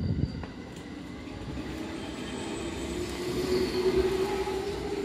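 Electric commuter train heard from inside the car as it runs into a station: steady running rumble with a hum that grows louder over a few seconds as a train on the next track passes close alongside.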